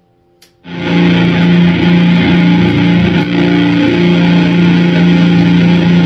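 Electric guitar through a Brazen Bull one-knob fuzz pedal, playing a heavy, thick fuzz riff with long sustained low notes. It comes in loud after a brief silence, about two thirds of a second in.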